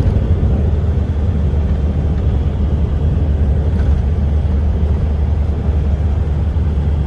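Diesel semi-truck driving at highway speed, heard from inside the cab: a steady low rumble of engine and road noise.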